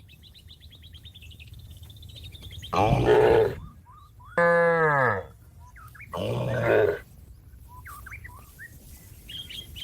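A cow mooing three times, each call under a second long, the middle one falling in pitch, calling to a herd mate out grazing. Birds chirp between the calls.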